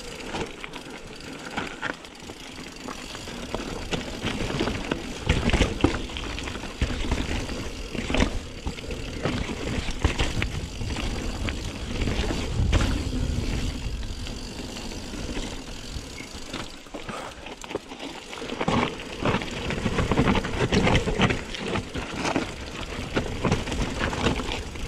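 Mountain bike riding over a rough trail: tyres crunching on gravel and stones, with irregular knocks and rattles from the bike over bumps.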